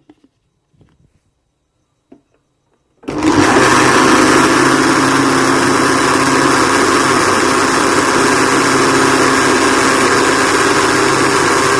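Electric mixer grinder blending cream with a milk-and-sugar mixture in its jar. A few light handling clicks, then the motor starts about three seconds in, runs steadily, and stops suddenly near the end.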